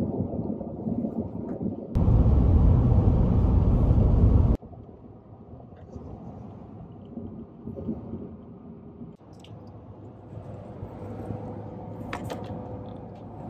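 Road and wind noise inside a moving vehicle's cabin. About two seconds in, a much louder, harsher rush of wind and road noise lasts a couple of seconds and cuts off suddenly, then a quieter steady cabin rumble.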